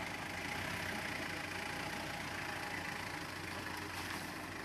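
Mitsubishi Triton L200 pickup engine running steadily at idle.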